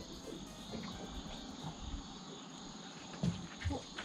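Insects droning steadily in high pitch from the trees along the bank, with a couple of soft thumps a little after three seconds in.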